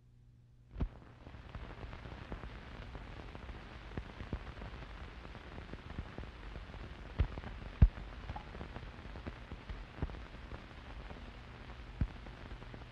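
Hiss and crackle of an old film soundtrack over a low steady hum, with scattered pops and clicks. The loudest are two sharp pops about half a second apart in the middle.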